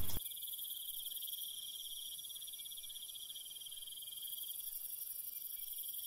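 Crickets chirping in a steady, continuous high trill.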